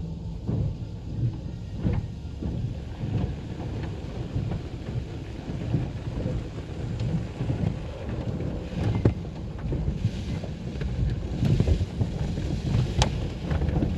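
Automatic car wash heard from inside the car's cabin: red cloth brush strips scrub and slap against the windshield and body while water and foam wash over the glass. Over a steady low rumble come irregular thumps and knocks.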